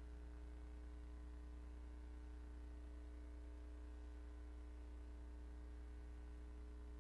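Faint, steady low electrical hum with a few fainter steady tones above it, unchanging throughout; no other sound.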